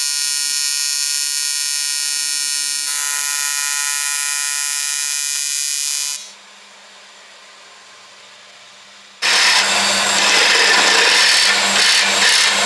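TIG welding arc on an aluminium pipe, buzzing steadily with a high-pitched hum for about six seconds before it stops. After a quieter lull with a low hum, a power tool starts about nine seconds in and runs loudly with a rough, noisy sound.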